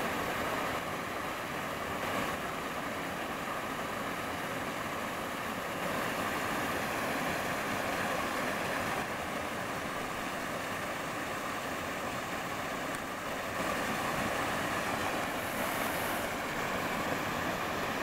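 Small waterfalls pouring over boulders into a rock pool: a steady rushing splash of falling water.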